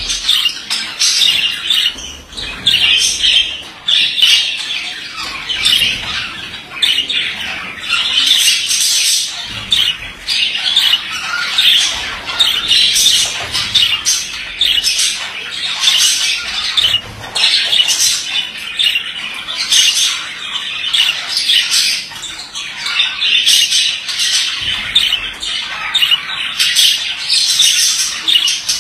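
Male budgerigar warbling and chattering without pause, a rapid, high-pitched stream of chirps and clicks.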